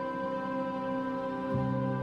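Relaxing meditation music of long held tones. A new low note comes in about one and a half seconds in.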